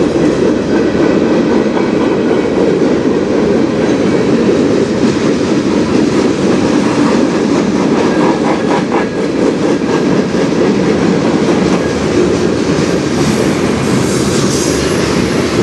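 Freight cars of a slow CN manifest train rolling past close by: a steady rumble of wheels on rail, with wheels clicking over rail joints about halfway through and a brief high wheel squeal near the end.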